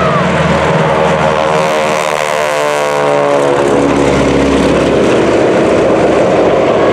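Propeller-driven aircraft engines at full power in a low, fast pass during a smoke-trailing takeoff, loud, with the engine pitch falling as they go by.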